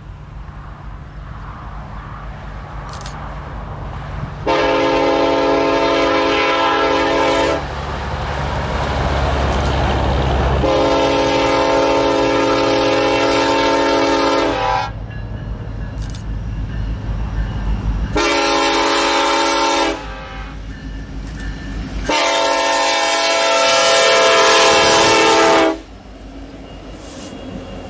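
Lead diesel locomotive of a BNSF coal train sounding its air horn in the grade-crossing pattern: two long blasts, a short one, then a long one. Under it runs the low rumble of the approaching engine, and the train passes near the end.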